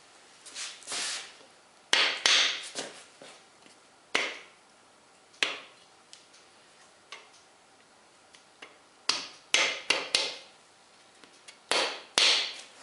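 Irregular sharp metallic clicks, taps and knocks of tools and engine parts being handled during crankshaft installation in a V8 engine block, some coming in quick clusters of several strokes.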